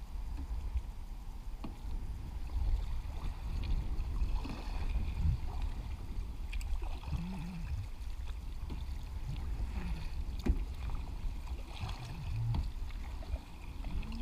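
Kayak paddle strokes: the blades dipping into and lifting out of the water in repeated splashes and drips, over a steady low rumble. A sharp knock comes about ten and a half seconds in.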